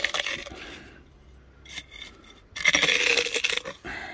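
Dry tortilla pieces being crushed under the bottom of an enamelware camp mug pressed and twisted into an enamel bowl: crunching and scraping that fades over the first second, then a louder stretch of grinding from about two and a half seconds in.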